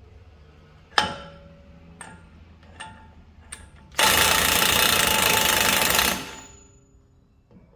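Cordless impact wrench hammering the front axle spindle nut down for about two seconds, running it close before final torquing. A few sharp metallic clicks come before it.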